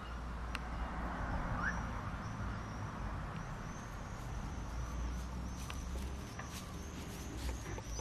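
Outdoor garden ambience: a steady low rumble, with a faint high chirp from a small animal or bird repeating about twice a second from about halfway through.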